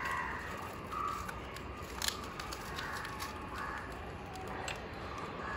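Faint birds calling in the background: several short, harsh calls, with two light clicks about two seconds in and near the end.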